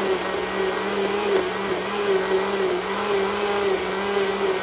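Countertop blender running steadily at a constant motor pitch, puréeing soft avocado into strained corn broth.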